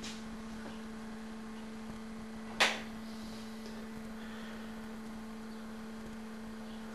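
Steady low hum, one tone with a fainter higher one above it. A single sharp click sounds about two and a half seconds in.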